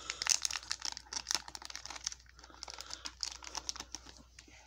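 Plastic wrapping and card sleeves crinkling and rustling as they are handled and pulled open by hand. The crackles come fast and dense at first and thin out after about two seconds.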